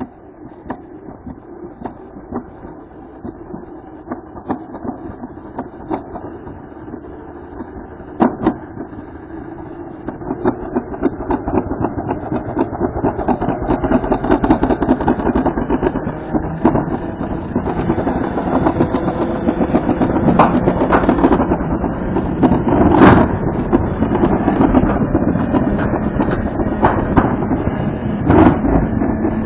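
Toboggan sled running down a metal trough track, a continuous rattling rumble that grows louder from about ten seconds in, with a sharp knock about eight seconds in and another a little past twenty seconds.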